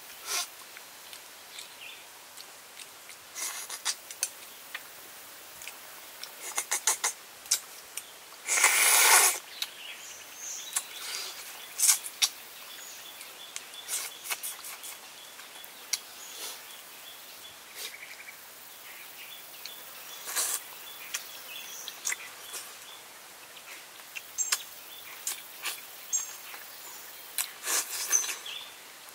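Close-up eating sounds of a person eating fish curry by hand: repeated lip smacks and wet chewing clicks, with one louder, noisier mouth sound lasting about a second near the nine-second mark. Faint chirping sounds in the background.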